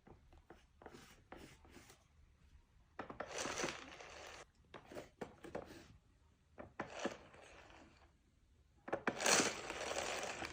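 Packaging being crinkled and torn, in three noisy stretches with small clicks and rustles between them.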